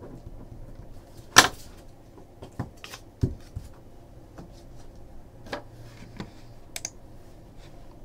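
Computer keyboard and mouse clicking: a dozen or so scattered keystrokes and clicks, the loudest about a second and a half in.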